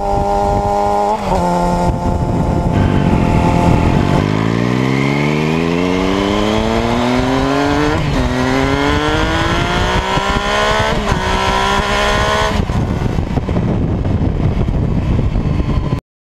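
Engine accelerating hard through the gears. After a steady run, its pitch climbs steeply and drops sharply at upshifts about eight and eleven seconds in, climbs again, then levels off into steady running before the sound cuts off abruptly near the end.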